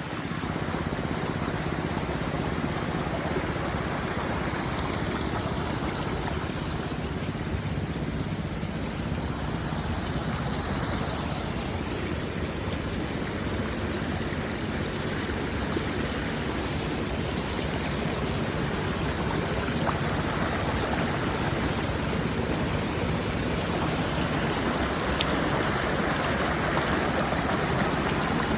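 Waterfall: water rushing steadily, a little louder in the last few seconds.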